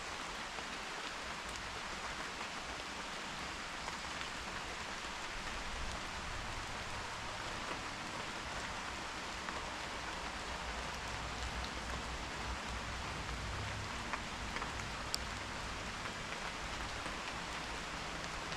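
Steady rain falling on a surface, with individual drops ticking now and then.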